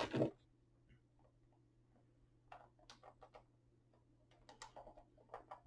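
Faint, irregular clicks and taps of a boxed action figure's cardboard and plastic packaging being handled and opened, over a faint low hum.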